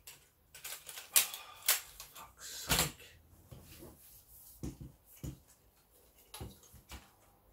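Lightweight camera tripod being handled: a run of clicks and knocks from its legs, flip leg locks and head. They are most frequent and loudest in the first three seconds, then come as fainter, sparser taps.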